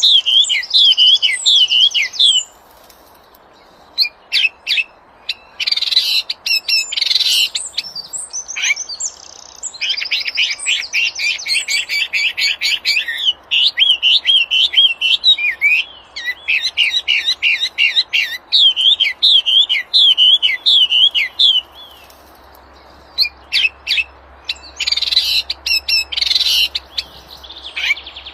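A wambi, a small songbird, singing vigorously: phrases of rapid, wavering high notes several seconds long, broken by sharp chip notes and short pauses.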